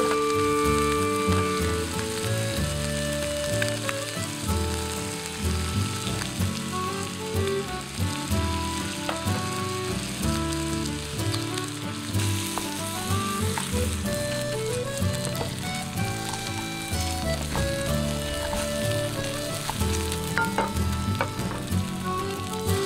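Chicken pieces, then raw rice, sizzling in olive oil in a cast-iron skillet while being stirred with a wooden spatula, over light background music.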